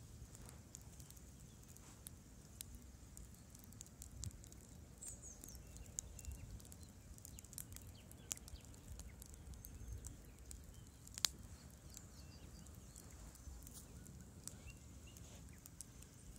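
Wood campfire crackling: faint, irregular sharp pops and snaps, with one louder pop about eleven seconds in.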